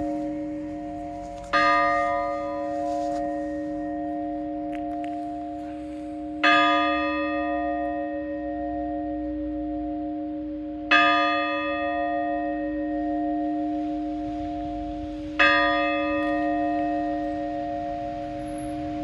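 Church bell tolling slowly, struck four times about four and a half seconds apart, each stroke ringing on and humming into the next.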